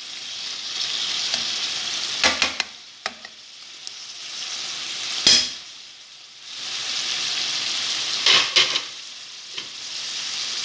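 Mushrooms in soy-based sauce sizzling and bubbling in a frying pan as the sauce cooks down, the hiss swelling and fading. A stirring utensil knocks and scrapes against the pan about six times.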